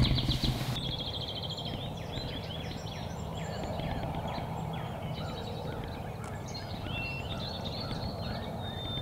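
Many wild birds chirping and calling, short sliding notes scattered throughout, over steady low outdoor background noise.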